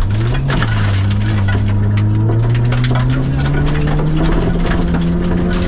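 Mitsubishi Colt 1.6's four-cylinder engine pulling hard under acceleration, heard from inside the cabin, its pitch rising slowly and steadily. Gravel crackles and ticks against the underside of the car throughout.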